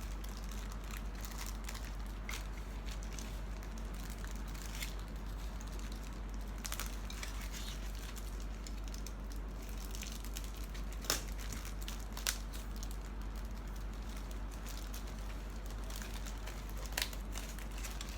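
Plastic bags of model-kit parts crinkling as they are handled, with three sharp clicks, two close together partway through and one near the end, over a steady low hum.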